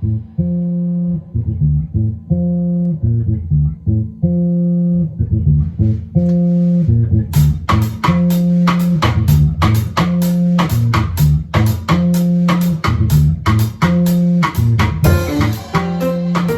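Bass guitar playing a repeating Latin-style riff on its own; about seven seconds in, drums join with a steady beat of sharp hits.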